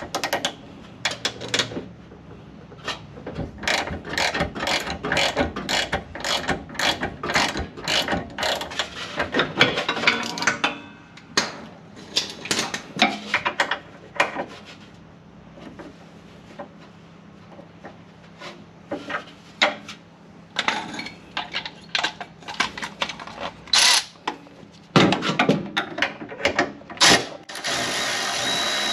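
Hand socket ratchet clicking in quick runs with pauses as a bolt on the differential is worked. Near the end a Milwaukee cordless electric ratchet starts running with a steady whine.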